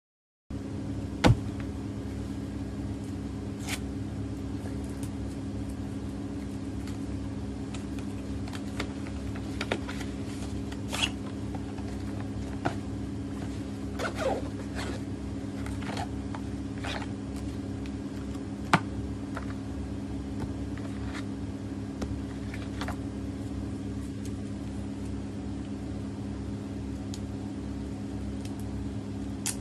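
Hands handling a GoPro's zippered carrying case and its accessories: scattered clicks and rustles and the zip being opened, with a sharp click about a second in and another near the middle. A steady low hum runs underneath.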